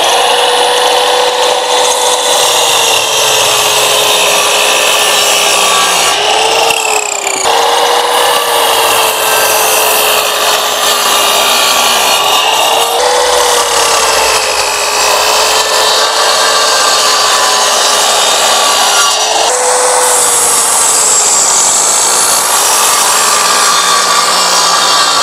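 8-inch sliding miter saw (TNT TSC-0815L) running continuously with a steady motor whine, its 48-tooth blade sawing through wooden boards in a series of miter cuts. The pitch jumps briefly three times, between cuts.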